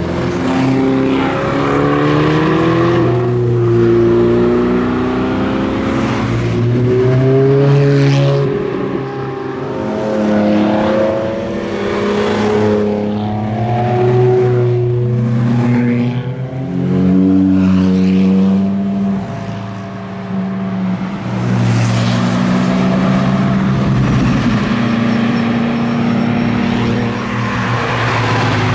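A procession of Ferrari sports cars driving past one after another, engine notes rising and falling as each car approaches and goes by.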